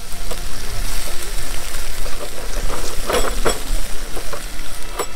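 Pork back ribs sizzling on a wire grill over charcoal, with a few sharp clicks of metal tongs and scissors against the meat and grate about three seconds in and again near the end.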